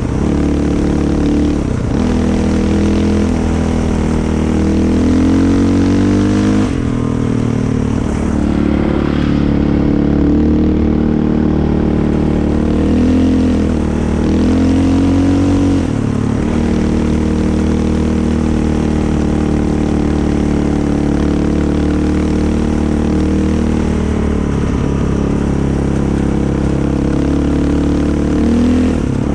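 Vehicle engine running continuously while driving, its revs rising and falling several times as it accelerates and eases off.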